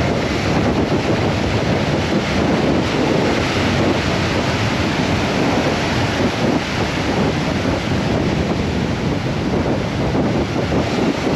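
Surf washing up the beach with wind buffeting the microphone, a steady rushing noise.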